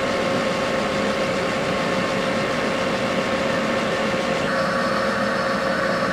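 South Bend 10L metal lathe running steadily, its four-jaw chuck spinning a small steel shaft during light finishing cuts, with a steady hum and whine. The sound shifts slightly about four and a half seconds in.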